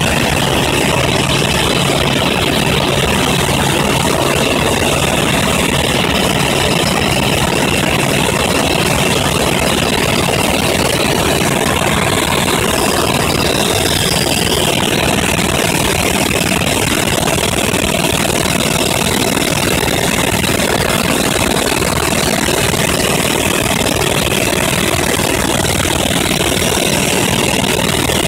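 Helicopter in flight: loud, steady engine and rotor noise.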